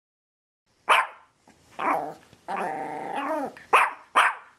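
A dog barking: a sharp bark about a second in, a second bark, a longer drawn-out call that drops in pitch at its end, then two sharp barks near the end.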